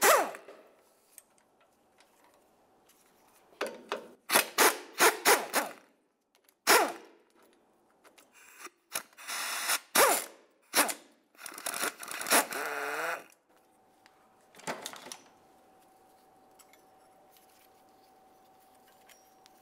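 Tools at work on the 13 mm bolts of the rear sway bar brackets: a series of short, loud bursts of mechanical noise and clatter, with one longer run that falls in pitch about twelve seconds in. The last several seconds hold only a faint steady hum.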